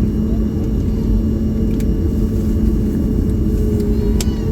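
Steady rumble of a Boeing 737 MAX 8's engines and airflow heard inside the cabin, with a constant low hum running through it. A single sharp click comes about four seconds in.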